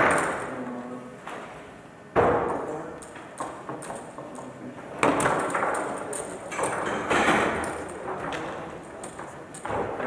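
Foosball table in play: sharp knocks of the ball being struck by the figures and hitting the table, with small clicks and rattles of the rods between. The loudest knocks come right at the start, about two seconds in and about five seconds in, each ringing on in the large hall.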